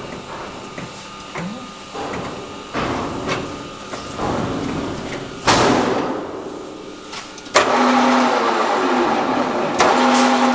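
Screw-cutting lathe: a few knocks and clunks, then about three-quarters of the way in the machine starts up suddenly and runs with a steady mechanical whir.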